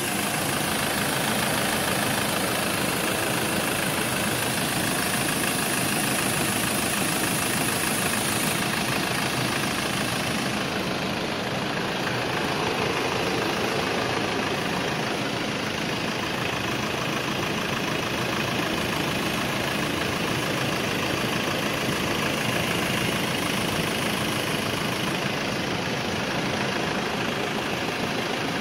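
Ford Duratorq 2.2 four-cylinder diesel in a Land Rover Defender idling steadily, heard close up over the open bonnet.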